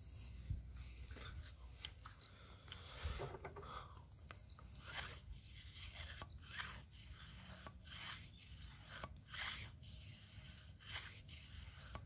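Faint, irregular rubbing and scraping strokes, about one every second, over a low steady hum: the handheld camera being moved and rubbed about close to the microphone.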